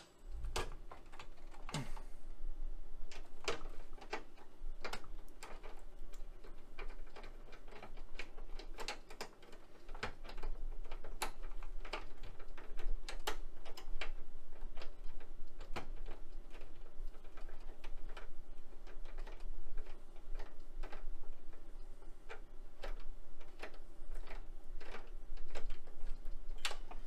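Irregular light clicks and ticks of a hand tool working at the mounting screws of the Apple Lisa's CRT, over a faint low hum.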